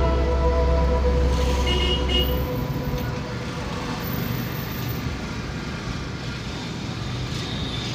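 Background music that stops about two seconds in, then the steady road and engine noise of a Renault Triber driving on a highway, heard inside the car's cabin, with a brief horn toot about two seconds in.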